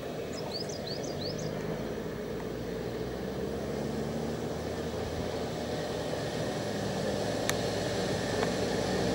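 Off-road SUV engine running steadily as the vehicle climbs a gravel forest track towards the listener, growing louder as it approaches. A small bird chirps four times quickly about half a second in.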